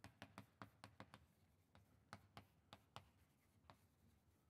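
Faint chalk on a blackboard, tapping and scratching as words are handwritten: a quick, irregular run of light clicks, a few each second.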